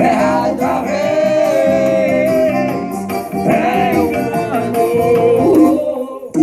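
A Portuguese-language song with a sung vocal line over instruments, played loud through a car sound system: two 15-inch Vulcan subwoofers, four 8-inch mid-bass speakers and 305 horn tweeters. The music dips briefly just before the end.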